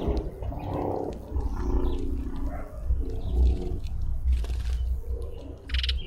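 Deep, repeated cooing of a dove in short phrases over a constant low rumble on the microphone, with two brief high bird calls later on.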